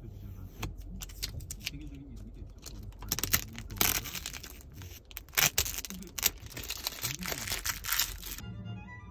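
Clear protective plastic film being peeled off a new car's headliner and overhead console, crinkling and tearing in irregular bursts, loudest about three to four seconds in and again around five to six seconds in. Background music plays underneath.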